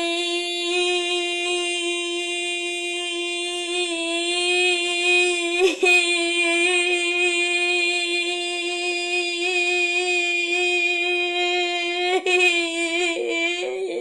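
A boy holds one long, loud, steady 'boiii' note at an even pitch as a 'yeah boi' breath challenge. The note wavers briefly about six and twelve seconds in. Near the end it turns shaky as his breath runs out.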